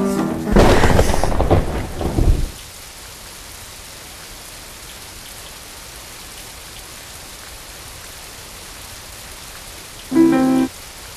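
A loud rumble of thunder for about the first two seconds, then steady rain falling. A short pitched tone sounds near the end.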